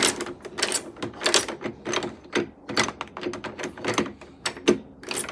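Door lock gearbox being worked to test it: a rapid, irregular run of metallic clicks and clunks from the multipoint lock mechanism.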